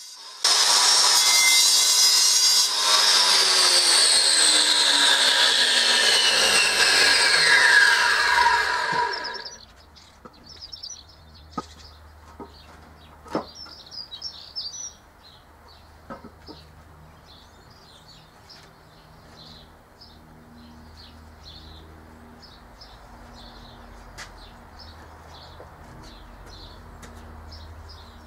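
Corded angle grinder with a cutting disc sawing through a paving slab. Its whine slides steadily down in pitch from about three seconds in and cuts off about nine and a half seconds in. After that come a few sharp knocks as slabs are handled, with birds chirping.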